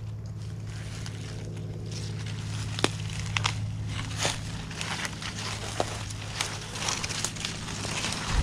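Footsteps crunching through dry leaf litter and twigs and brushing through leafy undergrowth, with sharp twig snaps and crackles that grow busier after the first couple of seconds. A steady low hum sits underneath throughout.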